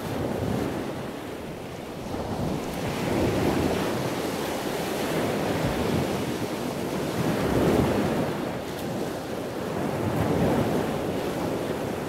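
Ocean water ambience: a steady rushing wash of waves that swells and ebbs every few seconds.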